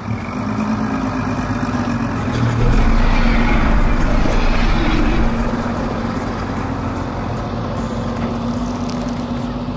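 Cartoon car engine sound effect, running steadily with a held low hum, louder for a couple of seconds from about two and a half seconds in.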